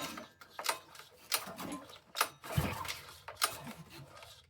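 Honda GC190 engine's recoil starter pulled several times in quick succession, about once a second, cranking the engine on choke without it catching.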